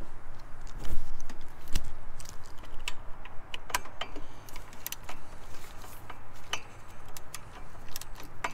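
Craftsman socket ratchet clicking in irregular runs as it loosens a 12 mm bolt on a drive-belt tensioner, with metal clinks of the tool on the bolt and a couple of louder knocks in the first two seconds.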